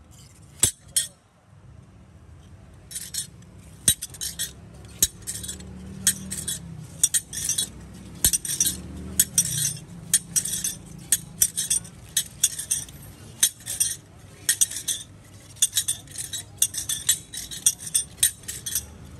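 A knife striking sugarcane stalks again and again as they are peeled and chopped into pieces: short, sharp strokes, about two or three a second, starting in earnest about three seconds in, over a low steady hum.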